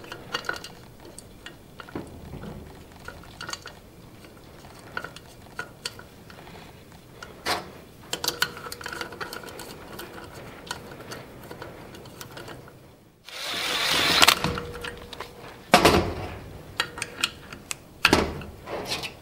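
Light metal clinks and clicks of a valve spring compressor being fitted onto a V8 cylinder head and tightened down with a ratchet wrench, with a louder scraping burst lasting over a second about two-thirds of the way in and sharper clicks near the end.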